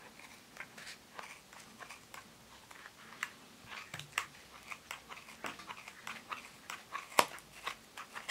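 Scissors snipping through yarn wound on a pompom maker: a run of short, irregular cuts, with one sharper snip near the end.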